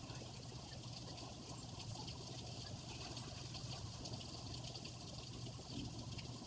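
Steady rain falling, a constant hiss dotted with many small drop ticks.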